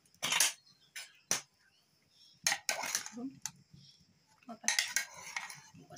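A metal spoon clinking and scraping against the inside of an aluminium pressure cooker while stirring boiled chayote squash cubes in water. The clinks come in separate bunches, the loudest about half a second in and again near 3 s and 5 s.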